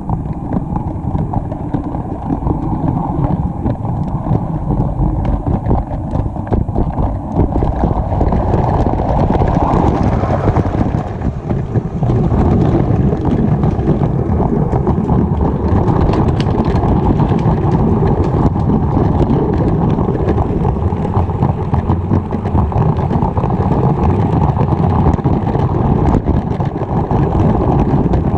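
LEGO train running along plastic track, heard from a camera riding on the train: a steady, loud rattle of motor and wheels with many small rapid clicks.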